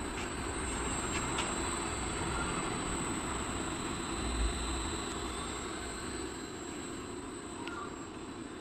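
V-cone powder blender running: its stainless steel V-shaped vessel tumbles, driven by an electric motor through a belt and worm-gear reducer, with a steady mechanical running noise and a couple of faint clicks.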